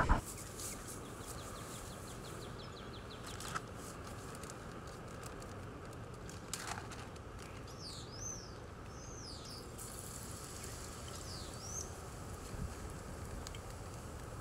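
Rocket stove burning with a steady rushing noise under a pan of heating oil. A bird chirps several times in quick rising-and-falling notes about halfway through and again a little later.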